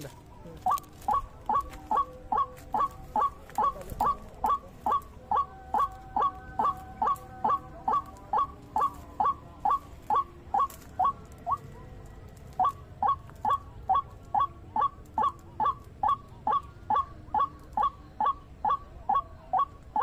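White-breasted waterhen calling: a steady run of short, falling notes, two or three a second, with a brief break about twelve seconds in.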